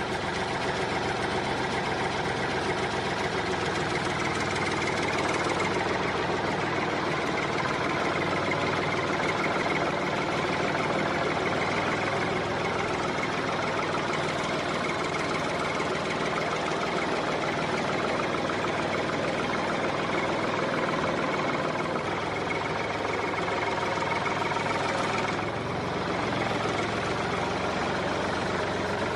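A small engine idling steadily with a fast, even knocking beat, like a tractor's diesel. Its sound shifts slightly about 25 seconds in.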